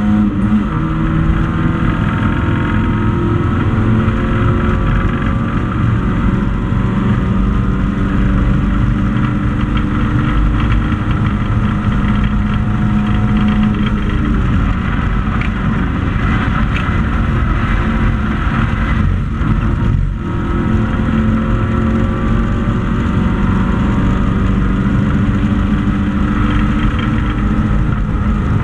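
Hatchback race car engine running hard, heard from inside the cabin, its pitch rising and falling through gear changes. There is a brief dip in level about twenty seconds in.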